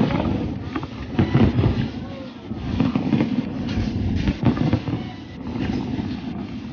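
Aerial firework shells bursting overhead in quick succession: a dense, irregular run of cracks and thumps over a continuous low rumble.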